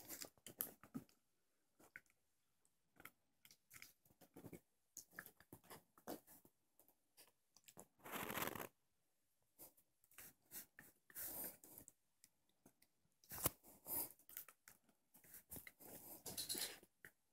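Small dog play-biting and chewing at a person's hand, with soft scuffling against a satin bedspread: scattered short chewing and rustling noises and a few longer noisy bursts, quiet in between.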